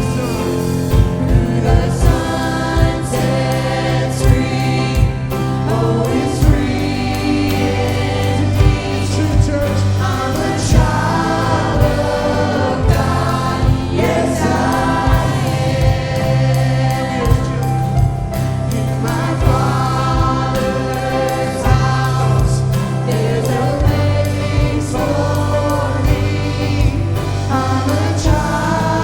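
Church worship band playing a song with singers, the voices over a steady drum beat and bass.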